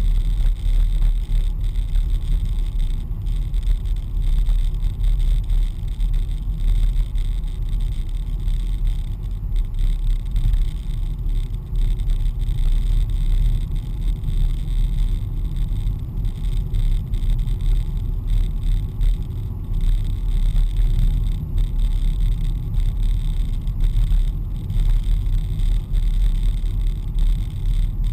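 Steady low rumble of a car driving along a country lane, heard from inside the cabin: engine and tyre-on-road noise at an even cruising speed.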